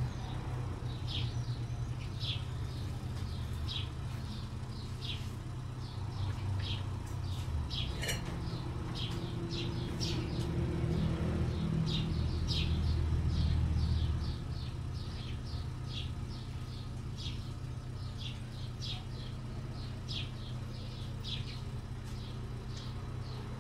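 A small bird chirping over and over, a short high chirp every second or so, over a steady low hum that grows louder for a few seconds around the middle.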